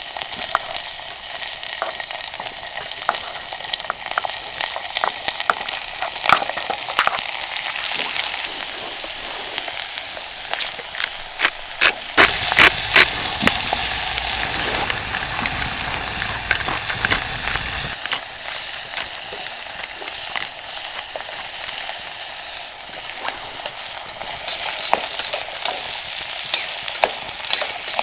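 Food sizzling as it fries in a pan, with the clicks and scrapes of a utensil stirring it. A few louder clicks and a low rumble come for several seconds in the middle.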